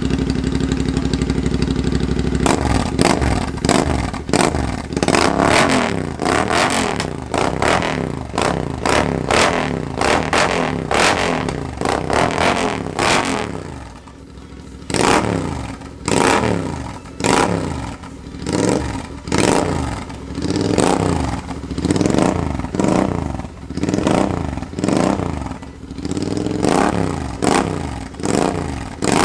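Royal Enfield Interceptor 650's parallel-twin engine running through a pair of aftermarket fish-tail exhausts. It idles steadily for about two seconds, then is revved again and again with repeated throttle blips that rise and fall in pitch, coming about once a second in the second half.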